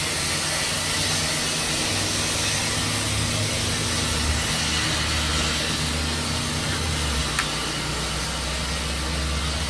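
Tru Cut sawmill running steadily: an engine hum under a constant hiss, the hum growing stronger about two seconds in.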